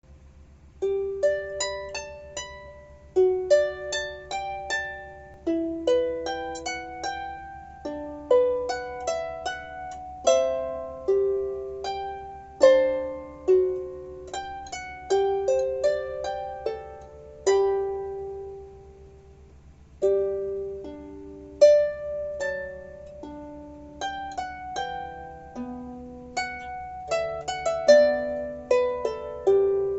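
Solo harp playing a simple beginner's arrangement: single plucked notes that ring and fade, a melody over lower notes. The playing dies away briefly about two-thirds through, then picks up again, over a faint steady low hum.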